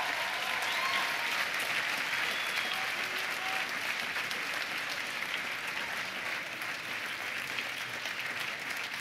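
Audience applauding steadily, a dense even clapping that eases slightly toward the end.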